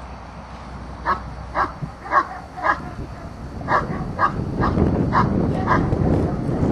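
A dog barking in short, high yips, about eight of them, mostly in pairs half a second apart. A low rumbling noise builds up underneath from about two-thirds of the way in.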